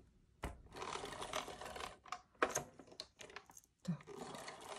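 Paper and foam board being handled and pressed together by hand while a shaker card is assembled: soft rustling with a couple of light taps or clicks.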